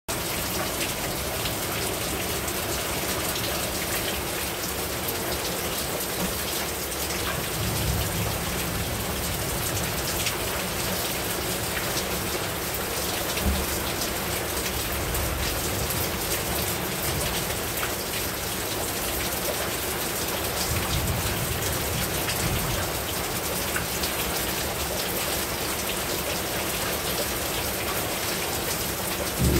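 Steady rain falling on a rooftop: an even hiss of rain with many sharp individual drop hits through it.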